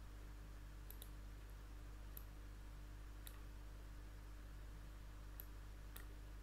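Faint computer mouse clicks, about six at irregular intervals, over a low steady hum.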